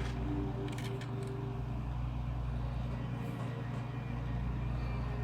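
Steady low rumble, like a running engine, with a few light clicks about a second in.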